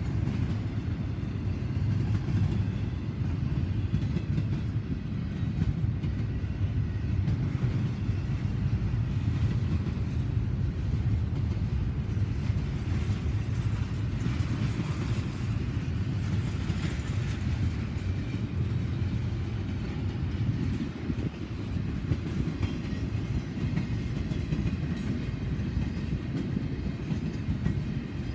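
Double-stack intermodal freight train's container cars rolling past: a steady rumble of steel wheels on rail.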